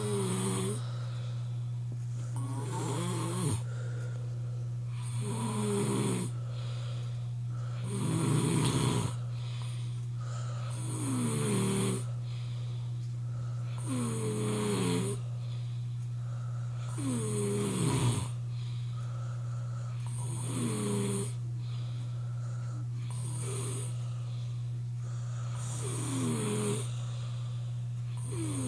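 A person snoring hard in deep sleep: about ten loud snores, one every three seconds or so, each falling in pitch, over a steady low hum.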